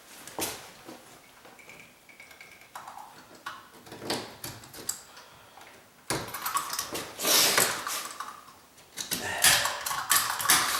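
Sheetrock knife used as a cutter, scraping and cutting at the edge where the door latch catches, in short strokes. The strokes are sparse and faint at first, then come quicker and louder from about halfway through.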